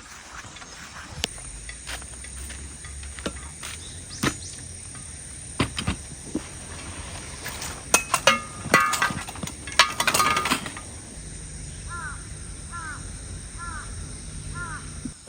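Scattered knocks and clicks, with a burst of clattering in the middle, then a short chirping call repeated five times near the end.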